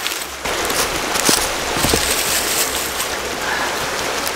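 Steady rushing of a small creek running close by, with a few soft knocks about one and two seconds in.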